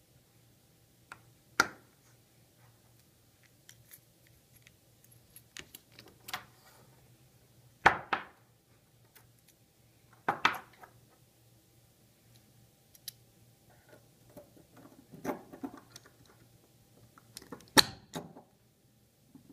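Steel bearing parts and washers of a can seamer roll assembly clicking and clinking as they are handled and fitted together by hand, with about five louder knocks spread through.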